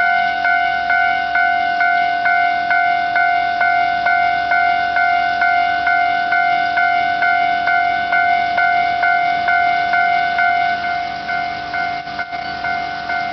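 Japanese railway level-crossing warning bell ringing, a steady ding-ding of just under three strikes a second over a constant ringing tone.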